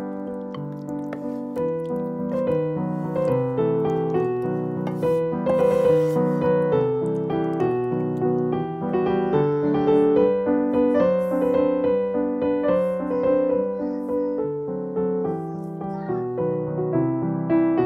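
Background piano music: a melody of evenly paced notes over chords.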